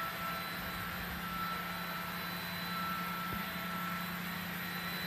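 Steady low hum over an even hiss, with one faint click a little past three seconds in.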